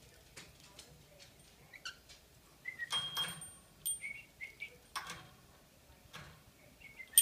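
Agitated cockatiel: a few short chirps and several brief noisy bursts among scattered light clicks and taps.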